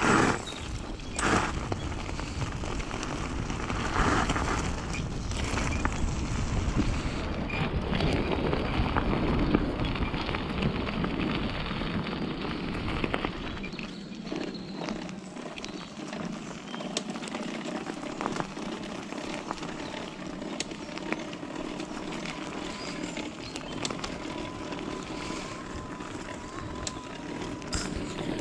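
E-bike ridden along a forest track: tyre noise and scattered rattles over a low rumble that drops away about halfway through. After that a faint steady whine from the mid-drive motor comes through, a motor the rider says sounds dry and needs greasing.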